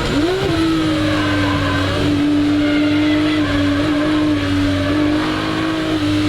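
Ferrari 250 GT SWB's Colombo V12 engine running under way: a quick jump in revs just after the start, then held at nearly steady revs with a slight easing near the end.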